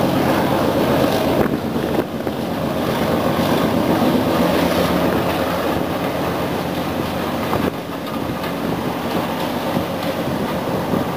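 Class 37/9 diesel locomotive 37901's Mirrlees MB275T engine running as it hauls a train. A steady low engine note sits under a rush of noise, and it drops a little about two seconds in and again near eight seconds in.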